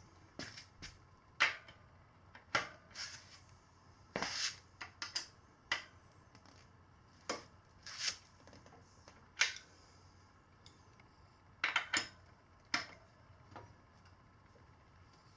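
Irregular sharp metallic clicks and clacks of hand tools being handled on the bike's rear axle as it is loosened, some in quick pairs.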